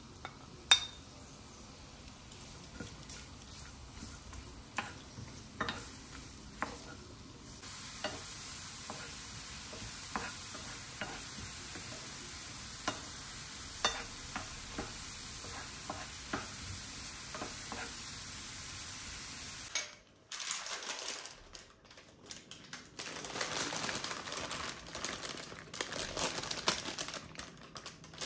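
Carrot sticks frying in olive oil in a pan, with a steady sizzle that grows louder about a third of the way in, and scattered taps of a wooden spoon stirring against the pan. After a short break near the end, a crackly rustle as roasted aubergine pieces are tipped off baking paper into a glass bowl.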